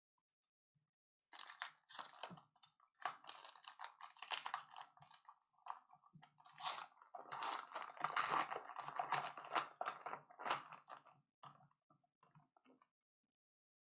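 A trading card pack's wrapper crinkling and tearing as it is opened, with cards being handled and slid against each other, a busy run of crinkles and clicks that starts about a second in and stops shortly before the end.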